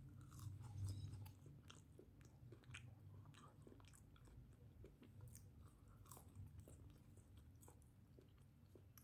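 Faint, scattered chewing and crunching of someone eating a chicken burger, over a steady low hum.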